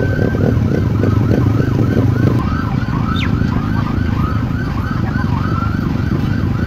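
Emergency vehicle siren in a fast yelp, rising and falling about three times a second, over a steady low rumble.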